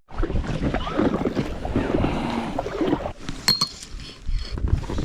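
Water sloshing and splashing around an inflatable packraft being paddled, with wind on the microphone. The sound eases off after about three seconds, and a few sharp light clicks follow.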